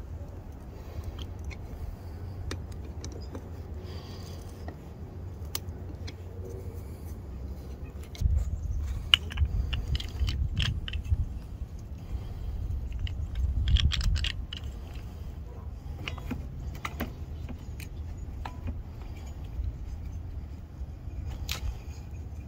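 Wind buffeting the microphone, with gusts about eight and fourteen seconds in, over scattered metallic clicks and clinks as a propane tank's gauged regulator and hose fittings are handled.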